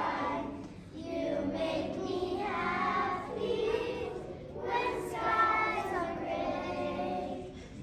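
A group of young children singing together in sung phrases, with short breaks between the phrases.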